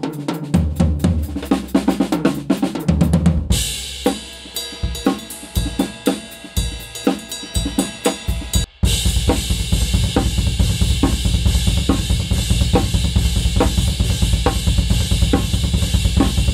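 Acoustic drum kit played live: bass drum, snare, hi-hat and cymbals, recorded unprocessed through the Tascam DR-40X's built-in condenser mics in X-Y pattern. A busy run of hits gives way to a sparser groove a few seconds in. After a short break about nine seconds in comes a steadier, denser beat with a heavy cymbal wash.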